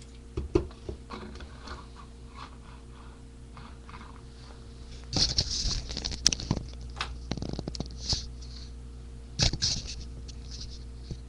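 Close handling noises: a string of light clicks and knocks with short hissy rustles, louder about halfway through and again near the end, over a steady low hum.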